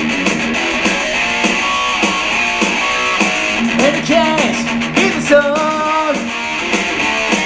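Rock song played on guitars, with a lead line of bending, gliding notes over a strummed backing.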